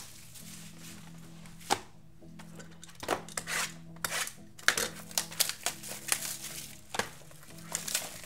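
Clear plastic shrink-wrap crinkling and tearing off a trading-card box as the box is handled, in clusters of short crackles and rips. Faint steady background music runs underneath.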